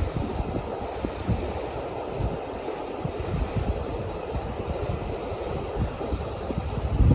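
Low, steady rumble of a frozen river in winter, with wind buffeting the microphone and stronger gusts right at the start and again near the end.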